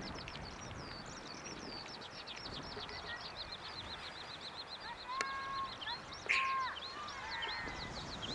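Wild birds singing in a continuous rapid twittering chorus, with two short, louder calls about five and six seconds in.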